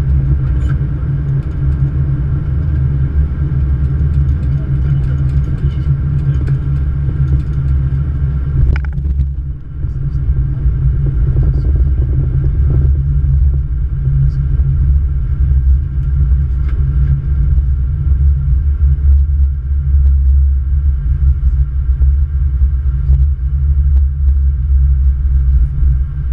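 Steady, loud low rumble in the cockpit of a Boeing 777-200 as the airliner rolls along the runway during landing. The sound shifts and briefly dips about nine seconds in.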